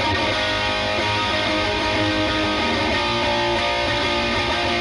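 Schecter Hellraiser V-1 FR electric guitar with EMG active pickups played through a distorted tone: a continuous strummed and picked riff at an even, steady loudness.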